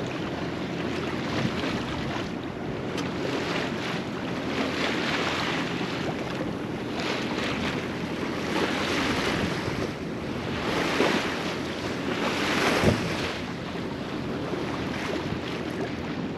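Wind buffeting the microphone and water rushing along the hull of a sailing yacht under way in choppy water, with irregular surges of spray and splashing every second or two. There is a low steady hum underneath.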